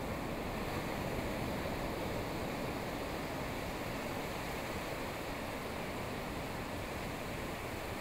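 Steady rushing ambient noise with no distinct events in it.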